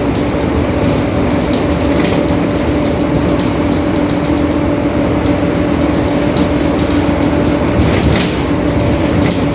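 Mercedes-Benz OF-1721 Bluetec 5 bus under way at steady speed, its diesel engine and drivetrain running with a steady drone from the growling differential. Short body rattles and knocks come through now and then, most strongly near the end.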